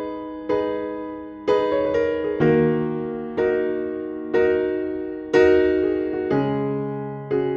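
Background music: slow electric-piano chords struck about once a second, each ringing out and fading before the next.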